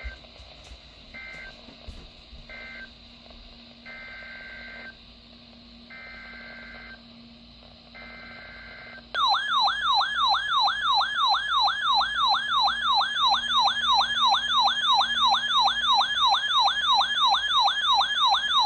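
Faint bursts of two-tone digital data from a NOAA weather radio broadcast (SAME/EAS coding). About nine seconds in, the weather radio receiver's own alert alarm takes over: a loud electronic warble sweeping up and down about three times a second.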